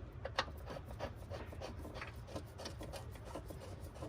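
Faint scraping and a few light clicks of hand work on metal engine parts, as bolts on the engine mounting bracket are fitted by hand.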